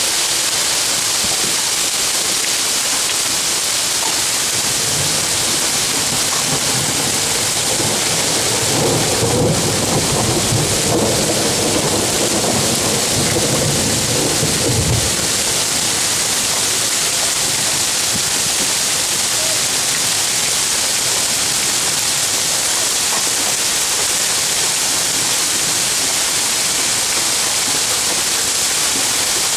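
A roll of thunder over a steady hiss of heavy rain: the low rumble builds about five seconds in, is loudest in the middle and stops fairly abruptly, while the rain runs on unchanged.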